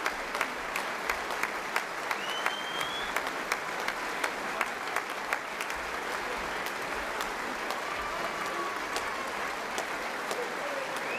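Audience applauding, with sharp individual claps standing out for the first five seconds or so before the clapping settles to a steadier, even sound.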